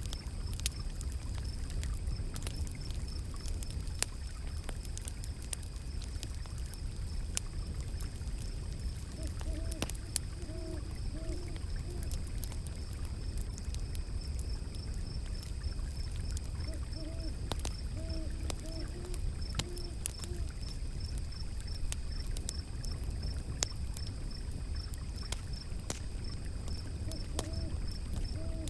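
Wood fire crackling with frequent sharp pops over a steady low rush of running water, and an owl hooting in three short series of hoots, about a third of the way in, past the middle and near the end.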